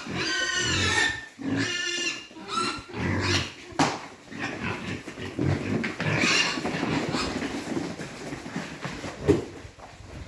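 Pigs squealing and grunting, with several high squeals in the first few seconds and again midway, and a couple of sharp knocks.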